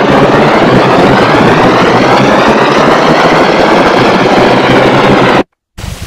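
An image sonified with Photosounder: a loud, dense, harsh noise-like texture with faint tones arcing up and down through it. It cuts off abruptly about five and a half seconds in, and after a split-second silence a quieter new texture begins.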